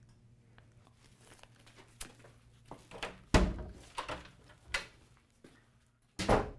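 Footsteps and scattered knocks and thuds as a person walks out through a door, with a heavier thud about halfway through and a brief, louder noise near the end.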